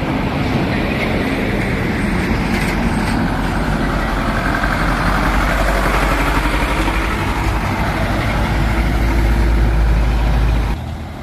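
Diesel dump truck engine running under throttle as the truck passes close by: a loud, continuous low rumble that builds toward the end, then drops off suddenly.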